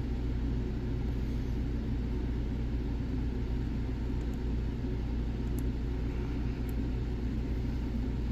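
A steady low rumble throughout, with a few faint, light clicks from a pick working the serrated pins of a six-pin padlock.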